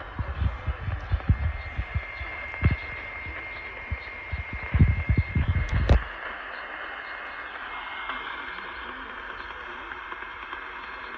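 Radio reception noise: a steady hiss with irregular low thumps and pops, and a faint steady tone for a few seconds. The thumps stop abruptly about six seconds in, leaving only the hiss.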